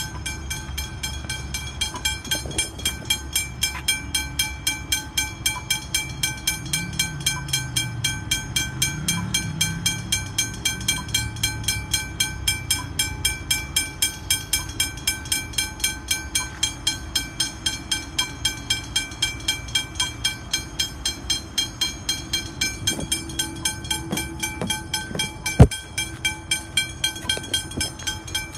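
Railway level-crossing bell ringing in rapid, even strikes, about three a second, with a low rumble underneath that swells in the middle. A single sharp knock about 26 seconds in is the loudest sound.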